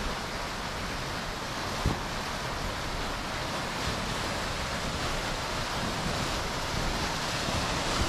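Steady rushing of fast open water at a river rapid, running between ice, with one soft thump about two seconds in.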